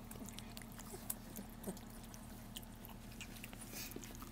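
Bullmastiff puppies eating wet puppy mush from a metal pan: many small irregular smacking and licking clicks over a faint steady hum.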